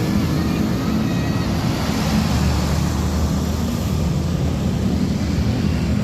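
Steady heavy road traffic, dominated by the engine of a large diesel bus passing close by.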